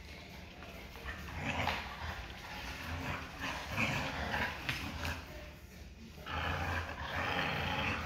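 Two dogs playing tug-of-war over a plush toy, growling in play and scuffling, with a longer, louder stretch of rough growling near the end.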